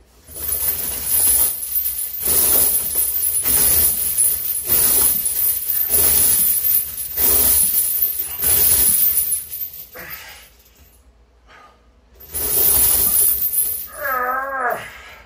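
Heavy steel chains hung from a barbell rattle and clank with each rep of a decline bench press, as the links pile onto and lift off the floor, about one rep a second for eight reps. A pause follows, then one more rep and a short wavering groan near the end.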